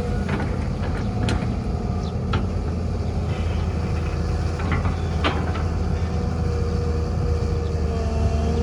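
Heavy diesel machinery, an excavator and dump trucks, running steadily with a low rumble and a faint steady whine, broken by a few sharp clanks.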